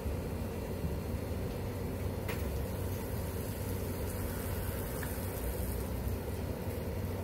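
A steady low rumble, with a faint click about two seconds in.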